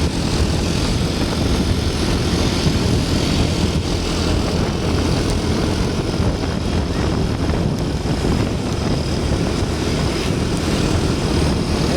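Bus engine running steadily, a continuous low drone with road noise and no horn.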